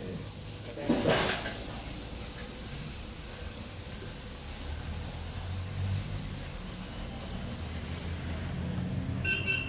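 Kottu roti and vegetables sizzling on a flat griddle, a steady hiss over a low rumble of traffic, with a short louder burst of noise about a second in.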